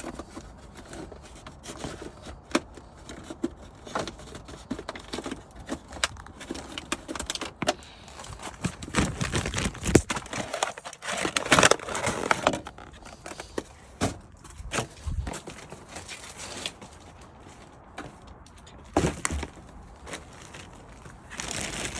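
Straw bedding being handled, rustling and crackling in irregular spells with scattered clicks and knocks; the busiest, loudest stretch comes around halfway through.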